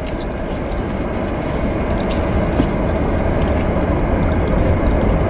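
Steady road and engine noise of a car being driven, heard from inside the cabin.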